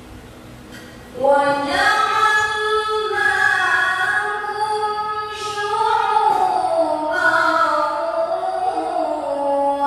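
A young woman reciting the Quran in the melodic tilawah style. Her voice comes in about a second in and carries long held notes that glide up and down in pitch.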